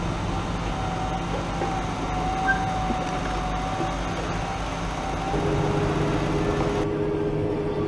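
Fendt tractor's engine and drivetrain running steadily, heard from inside the cab, with a faint wavering whine. About five seconds in, the engine settles into a new steady note.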